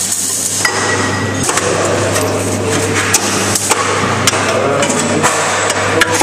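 Hand ratchet with an extension clicking and knocking irregularly as a freshly loosened bolt is turned out of a car's front steering knuckle.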